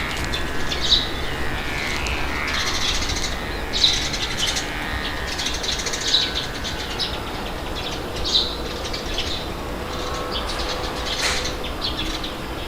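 Small birds chirping in short, repeated calls over a steady rush of wind.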